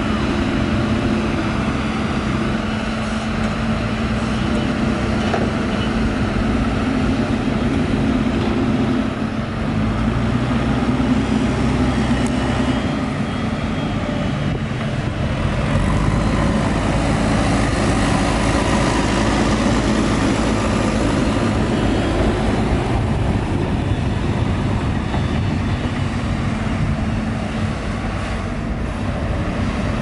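Diesel engines of a LiuGong crawler excavator and a JCB backhoe loader working: a steady engine note that shifts as the machines load. A deeper, louder engine sound comes in a little past halfway, as the backhoe drives with a full bucket.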